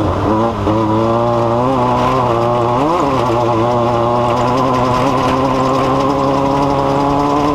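An engine running steadily, its pitch briefly rising and falling a few times in the first three seconds before settling to an even note.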